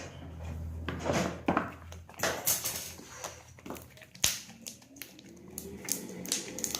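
Sticky homemade slime being worked by hand on a tabletop with oil, giving irregular squelching and smacking sounds, with a sharp tap about four seconds in.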